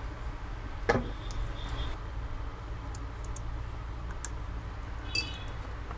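A few light clicks and taps of small tools and parts being handled during a phone repair, one about a second in and a sharper, slightly ringing one near the end, over a steady low hum.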